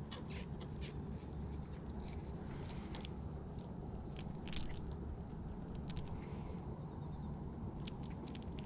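Steady low rumble of wind on the microphone, with scattered small clicks and ticks as gloved hands handle the fishing line and lure.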